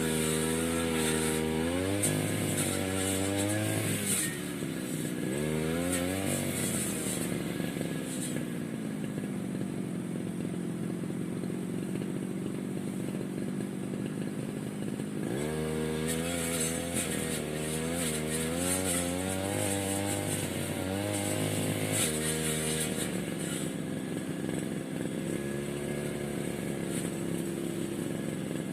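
Small petrol engine of a grass cutter being tested, revving high with a wavering pitch, dropping back to a lower steady speed about eight seconds in, revving up again at about fifteen seconds and easing off again at about twenty-two seconds.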